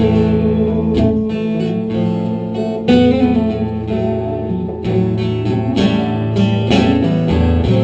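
Acoustic guitar strumming chords in a slow instrumental passage of a live song, with no singing.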